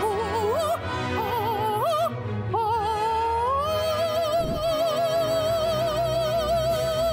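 A woman singing in operatic style with a wide vibrato, climbing in short rising steps and then holding one long high note from about three and a half seconds in.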